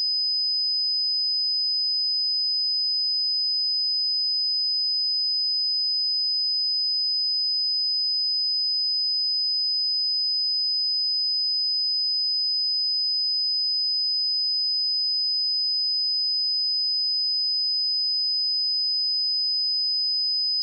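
A pure 5015 Hz sine-wave test tone, held steady at one pitch and level throughout: a single high-pitched whistle-like note.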